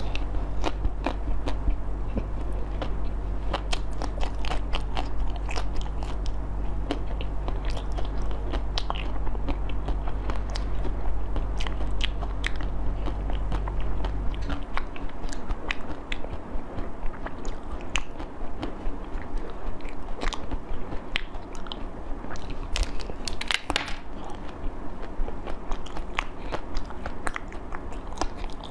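Close-up eating: biting into a frozen, coated banana and chewing it, with many small crisp crackles and crunches.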